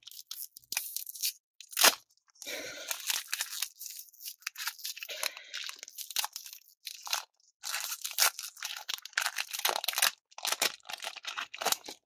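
A Digimon card game booster pack's crinkly foil wrapper being torn open and crumpled by hand: irregular crackling and tearing in short spurts, with brief pauses between.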